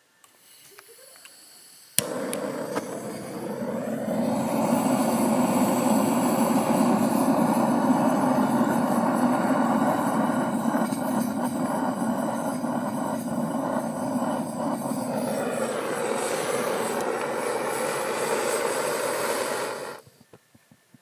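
A small motor switched on with a click, rising in pitch as it spins up, then running steadily with a loud rushing whir for about eighteen seconds before cutting off suddenly.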